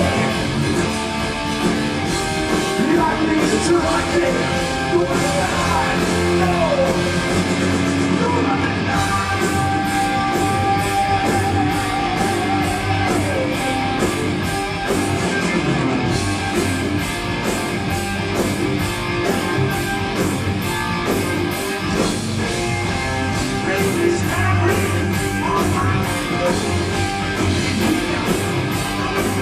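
Heavy metal band playing live, old-school style: electric guitar to the fore over a steady beat, with bending lead notes.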